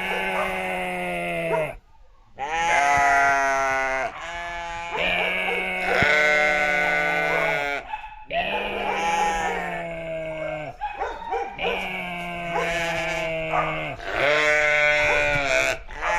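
A series of about six long, wavering bleat-like animal calls, each lasting one to three seconds with short breaks between them.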